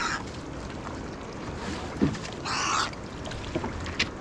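Fishing-trap net being hauled over the side of a small boat: short splashing bursts of water, a dull knock against the boat about two seconds in and a sharp click near the end, over wind noise.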